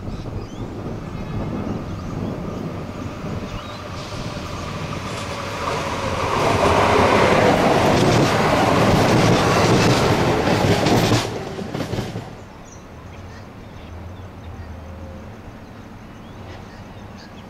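Adelaide suburban diesel railcar approaching and passing close by, its engine and wheels on the rails growing louder to a peak between about six and eleven seconds in. The sound cuts off abruptly near twelve seconds, leaving a quieter steady low rumble.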